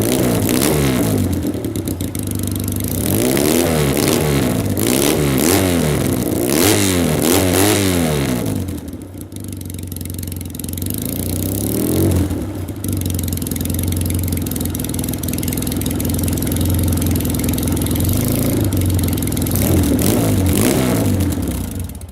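Yamaha XS650 parallel-twin motorcycle engine running through short straight pipes. It is revved in several quick throttle blips in the first half, drops lower for a moment, and then runs steadier with a couple more small revs near the end.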